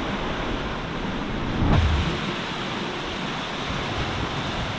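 Sea rushing along the hull of a sailing catamaran under way, with wind on the microphone. A brief, louder low buffet comes just under two seconds in.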